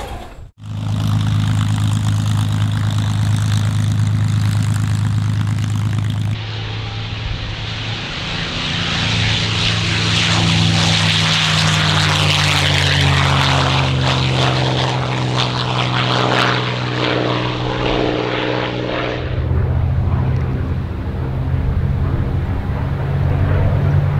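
Rolls-Royce Merlin V12 of a P-51D Mustang, first running at a steady pitch for about six seconds. It then makes a low, fast pass: the engine and propeller swell into a loud howl, the pitch drops as the aircraft goes by about halfway through, and the sound fades as it climbs away.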